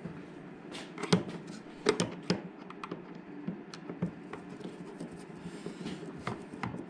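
Screwdriver turning the screws of a motorcycle's plastic airbox lid: scattered small clicks, taps and scrapes of metal on plastic, the sharpest a little over one and two seconds in.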